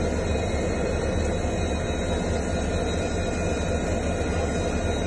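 Diesel engine of a WDP-4D passenger locomotive (an EMD 16-cylinder two-stroke) running steadily with a deep, even hum as the locomotive creeps up to a coach for coupling.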